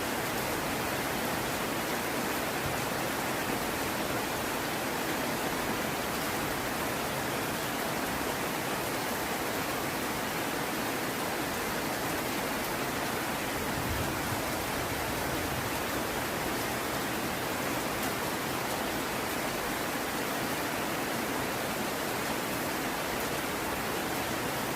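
Heavy rain falling steadily: an even, unbroken wash of noise.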